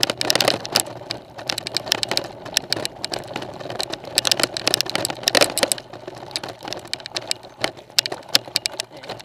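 Mountain bike rattling down a rough dirt-and-gravel track: rapid, irregular clicks and knocks over a continuous rumble of tyres on the ground.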